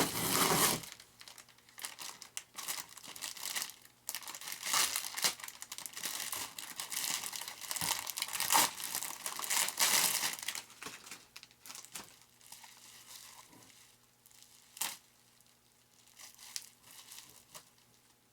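Plastic packaging crinkling and tearing as model airplane parts are unwrapped by hand. It is busiest in the first half and thins to scattered clicks and taps later, with one sharp tick about fifteen seconds in.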